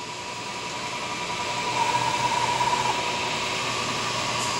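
Sharp OMV 3-axis CNC mill running, a steady mechanical whine with a low hum underneath. It grows louder over the first couple of seconds, peaks a little past the middle, then holds steady. The machine runs smoothly and quietly.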